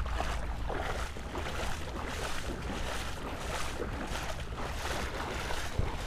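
Legs wading through knee-deep seawater, with a swishing splash at each stride about once a second. Wind rumbles on the microphone underneath.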